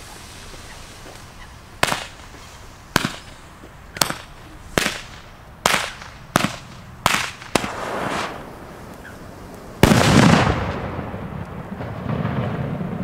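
Tric Track No. 2 firecracker going off: the lit fuse fizzes for about two seconds, then eight sharp bangs come at irregular intervals of roughly a second. About two seconds later a much louder final bang follows, echoing and rumbling away for a second or more.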